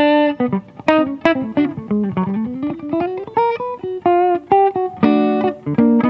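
Solo acoustic guitar playing an unhurried improvisation: single plucked notes, a run that steps down and then climbs back up in the middle, and fuller strummed chords near the end.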